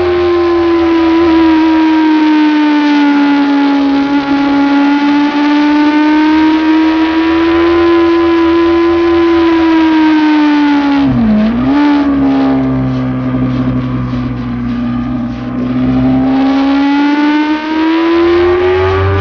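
Motorcycle engine at high revs, heard from onboard, its note sagging and rising with the throttle through the corners. About eleven seconds in it drops sharply and swings back up, and it climbs again near the end.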